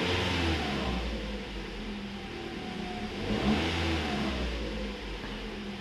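2014 Toyota Corolla's 1.8-litre four-cylinder engine blipped twice, rising and falling back to idle, once at the start and again about three seconds in. It runs smoothly, the misfire cured by new coil packs.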